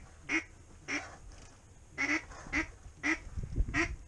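Duck quacking: a run of about seven short quacks, evenly spaced at roughly two a second.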